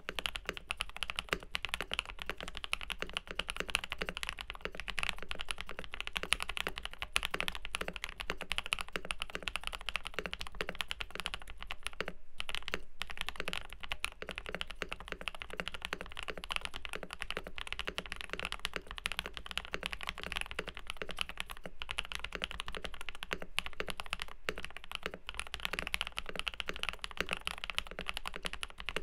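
Fast, continuous typing on a custom mechanical keyboard with lubed Durock POM switches, PBT keycaps and a polycarbonate plate, dampened with foam and tape mods, with a brief pause about twelve seconds in.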